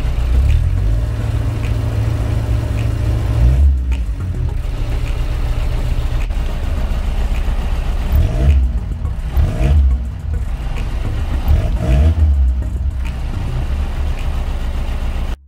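Volkswagen MK2 1.6-litre turbodiesel four-cylinder engine running, heard from inside the car's cabin. Its note dips and swells several times in the second half.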